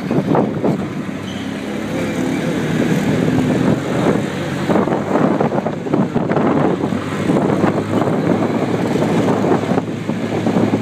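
Cocotaxi's small three-wheeler engine running steadily while under way, with a rattly road noise over it.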